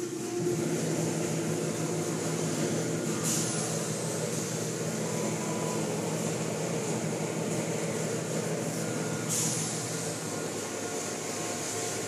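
Automatic tunnel car wash equipment running: a steady mechanical drone of motors and spraying water, with a low motor hum setting in about half a second in and short hissing bursts about three and nine seconds in.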